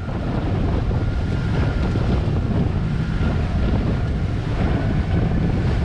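Wind buffeting the microphone on a moving motorboat, over the boat's steady engine drone and rushing water.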